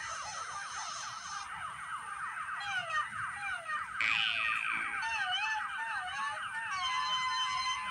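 Warbling, siren-like tones that swoop rapidly up and down, several times a second. Near the end they settle into steady held notes.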